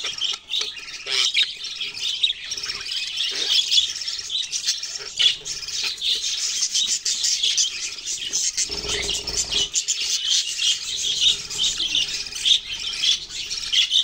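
Budgerigars chirping and squawking in a dense, unbroken stream of short high chirps. About nine seconds in there is a brief low rustle of handling noise.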